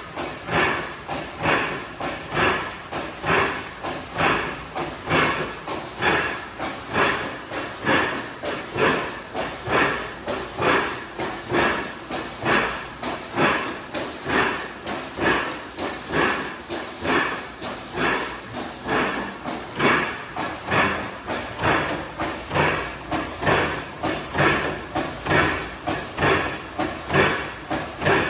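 IMA CD180 filling machine running through its cycle, a steady rhythm of air hisses and clacks a little more than once a second.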